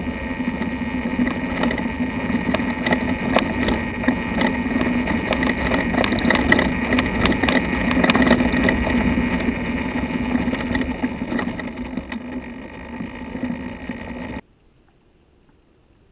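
2014 BMW F800GS Adventure coasting off road with the engine off: repeated clunks and rattles, mostly from the front end, over steady wind and tyre noise. The owner traced the clunking to damaged steering head bearings that he suspects were never properly tightened. The sound cuts off suddenly near the end.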